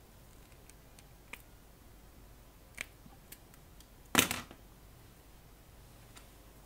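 Small hand tools clicking while a tube-heater hookup wire is shortened: a few light clicks, then one sharp, much louder snap about four seconds in.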